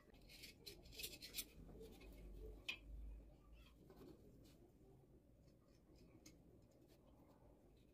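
Faint scratching and scraping of a craft knife blade cutting slots into a carved white ball, in short strokes that are busiest in the first three seconds and fainter after.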